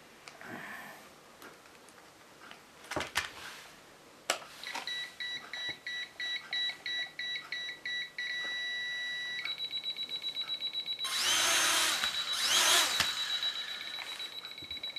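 A couple of clicks, then high-pitched electronic beeping from the FY-999-2 toy quadcopter and its transmitter as the quad is checked. The beeps come in short groups at first, then turn into a fast, continuous beeping from about nine seconds in. Around eleven to thirteen seconds there is a loud burst of noise with a brief rising whine.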